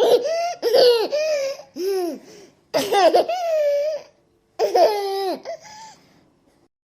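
Baby laughing in three bouts of high-pitched laughter with short breaks between them.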